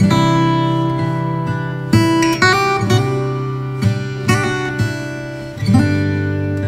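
Background music: acoustic guitar strumming chords, each chord struck sharply and left to ring.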